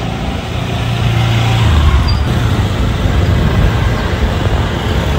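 Small motor scooter engines running, with road traffic around them.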